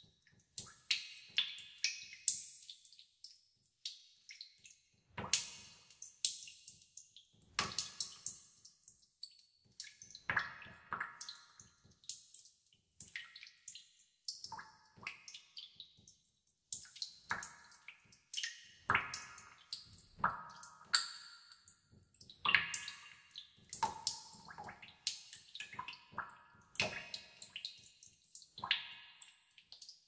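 Water droplets falling slowly into a pool in a cave: irregular plinks, roughly one to three a second and varying in loudness, each with an echoing tail.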